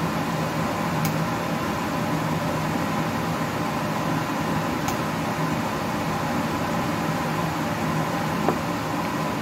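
Steady whirring hum and hiss of a running kitchen appliance fan, with three light metallic clicks of kitchen tongs spread through it.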